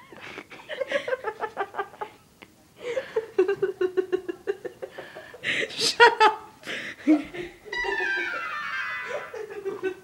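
A young woman laughing in repeated bursts. In the last two seconds a phone ringtone plays falling, sliding tones over a steady tone.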